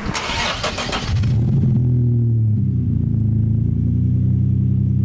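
Turbocharged VQ35HR 3.5-litre V6 of a Nissan S14 240SX cranking on the starter and catching about a second in: a cold start. It then runs at a fast idle that drops a little in pitch and settles into a steady rumble.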